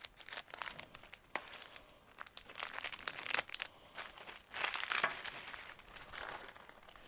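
Plastic wrapper crinkling and rustling in irregular spells as a squishy toy's package is cut and pulled open, with small clicks and ticks.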